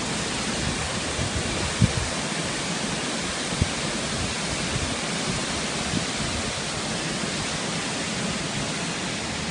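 Steady, loud rushing noise, with a few short low thumps.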